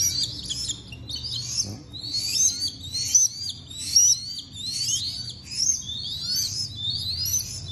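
Downy hawk chicks calling: a continuous run of high, thin chirps that rise and then fall, several a second.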